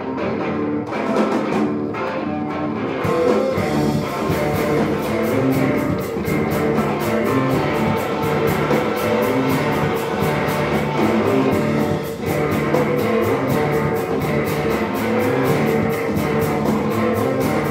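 Rock band playing live at the opening of a song. A steady, fast beat comes in about three seconds in and carries on under the dense band sound.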